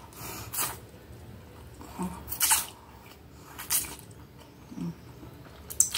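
Close-up eating sounds of a mouthful of spaghetti being slurped and chewed: several short, wet slurps, the loudest about two and a half seconds in, with two brief low voiced sounds from the eater in between.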